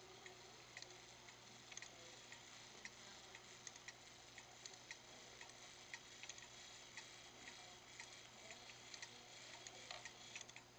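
Hermle cuckoo clock movement ticking faintly and evenly, about two ticks a second.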